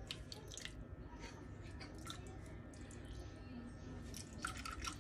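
Coconut milk being poured from a carton into a Thermomix's stainless steel bowl: faint, irregular small drips and splashes.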